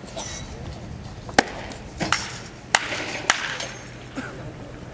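Wooden baseball bats hitting pitched balls in adjacent batting cages: a string of sharp, irregularly spaced cracks, about half a dozen, the loudest a little over a second in and just before and after the three-second mark.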